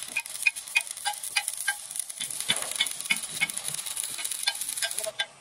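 Electric arc welding on a steel truck frame: the arc's steady frying sizzle, with sharp crackles about three times a second, breaking off near the end.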